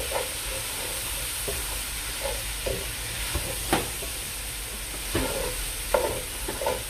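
Minced mutton sizzling steadily as it fries in an aluminium pan, stirred with a wooden spatula that scrapes and knocks against the pan, with a few sharper strokes in the second half.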